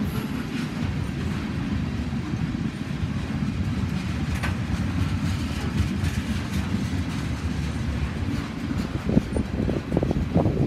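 Freight train of oil tank cars rolling slowly past: a steady low rumble of wheels on rail, with a run of uneven knocks near the end.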